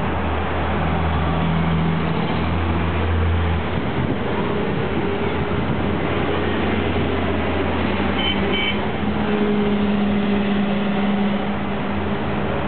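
Street traffic at a city intersection: cars and buses driving past, with a steady low engine hum that shifts as vehicles come and go. Two short high beeps sound about two-thirds of the way through.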